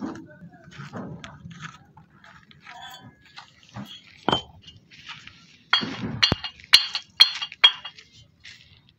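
Two fired clay bricks knocked against each other about five times, roughly two strikes a second. Each strike gives a sharp, ringing clink. A single duller knock comes a little before, as a brick is handled.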